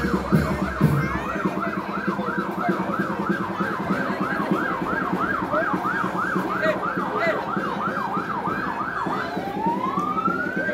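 Electronic siren yelping, its pitch sweeping up and down about three times a second. About nine seconds in it switches to a slow wail that rises steadily.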